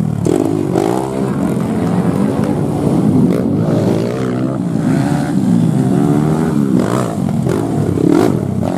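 Enduro dirt bike engines revving in bursts, their pitch rising and falling over and over as the riders work the throttle to clamber over a tyre obstacle.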